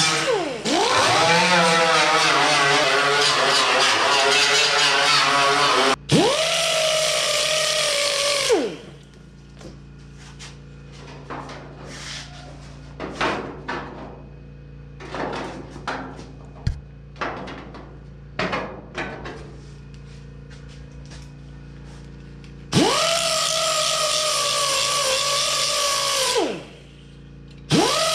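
Small air-powered right-angle grinder with a sanding disc, whining with a hiss of air as it works sheet steel, its pitch dipping under load just after the start and winding down about eight seconds in. Next come scattered light clicks and taps of a sheet-metal patch being handled, and then the grinder runs again twice near the end.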